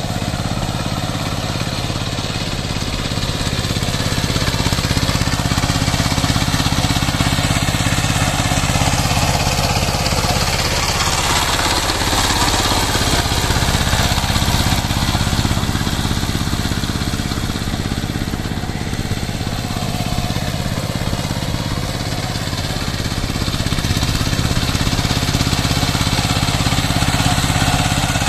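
Two-wheel power tiller's single-cylinder diesel engine running steadily under load as it works through paddy mud. It grows louder as the tiller comes close, around the middle and again near the end.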